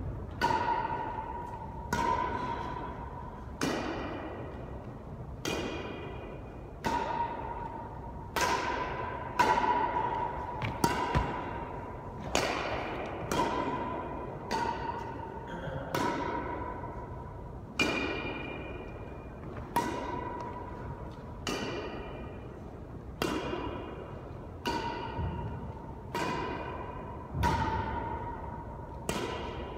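Badminton rackets hitting a shuttlecock back and forth in a long rally: a sharp hit about every one to two seconds at an uneven pace. Each hit is followed by a ringing tone that fades in the hard-walled court.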